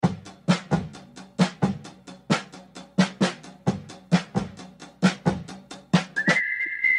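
Background music: a drums-only passage with a steady kick-and-snare beat. A high, steady whistle-like tone comes in about six seconds in.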